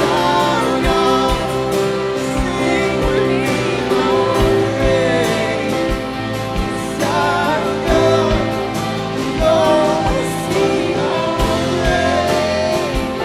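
Live worship band playing with singing: electric and acoustic guitars, keyboard and drum kit under sung vocals, with a kick drum beating steadily underneath.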